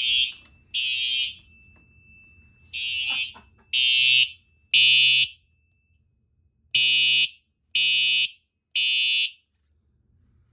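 Fire alarm horns sounding the temporal-3 evacuation pattern: three loud, high-pitched half-second blasts, then a pause, repeated over and over while the system is in alarm from a smoke detector.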